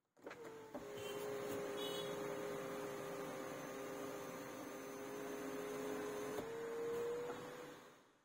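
Hyundai Creta SX's electric sunroof motor running as the glass panel slides open: a steady motor hum and whine that starts suddenly, steps up slightly in pitch about six and a half seconds in, and fades out near the end.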